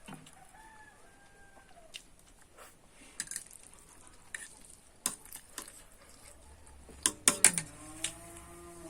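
Eating noises: sharp clicks and smacks of someone eating noodles, loudest in a quick cluster near the end, with a farm animal calling in the background about a second in and again near the end.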